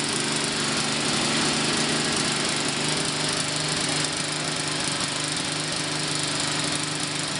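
Craftsman 5/24 snow blower's 5-horsepower engine running fast and steady, its level dipping slightly about four seconds in.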